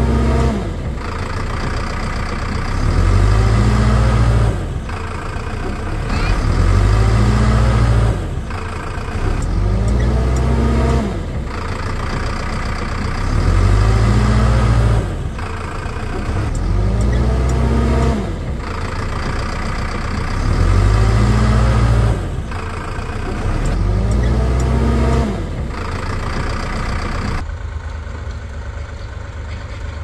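An engine revs up and falls back again and again in an even pattern, about every three and a half seconds. The pattern changes near the end.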